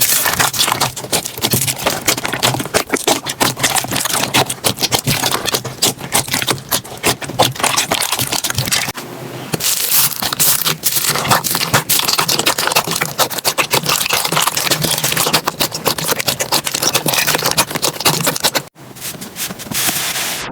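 Slime being squeezed, poked and stretched by hand, giving a dense run of small crackles, clicks and pops. It drops away sharply near the end.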